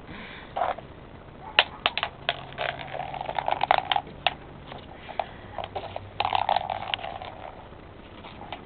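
Small puppies moving about: scattered quick clicks and taps with short scuffling rustles in between.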